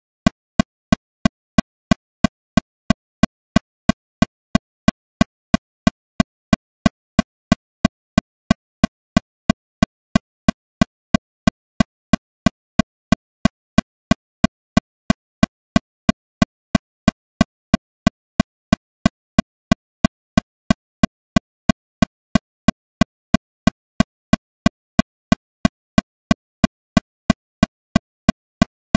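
Metronome clicking steadily at 182 beats per minute: about three short, pitched clicks a second with silence between them.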